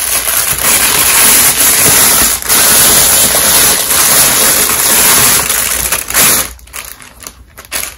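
Clear plastic bag crinkling loudly close to the microphone as it is torn open and a cloth outfit is pulled out. The crinkling stops about six and a half seconds in, leaving softer rustling and a few small clicks.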